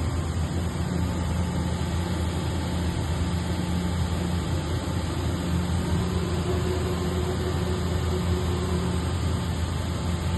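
Mazak Integrex e650H-II CNC lathe running under power with a steady machine hum and hiss. A faint higher tone joins about six seconds in and fades a few seconds later.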